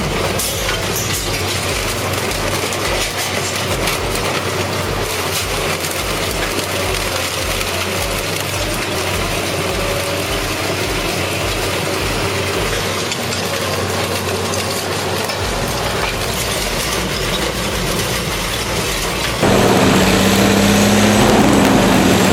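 Industrial shredder (Hammel VB950DK) running, heard as a steady heavy mechanical drone with a low pulsing throb. About three-quarters of the way through it gets louder and a steady hum joins in.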